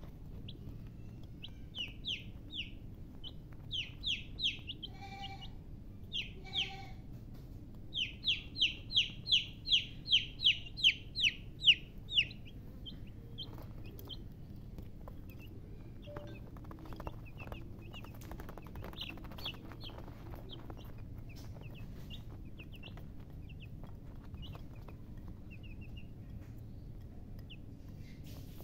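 Baby chicks peeping in quick, high, downward-sliding cheeps. From about eight seconds in comes a run of loud peeps, roughly two a second, and after that only fainter, scattered peeps. About five and six seconds in a hen gives two lower clucks, over a steady low background noise.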